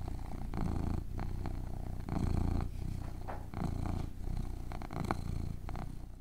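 Kitten purring close to the microphone, the purr swelling and easing with each breath about once a second, then fading out near the end.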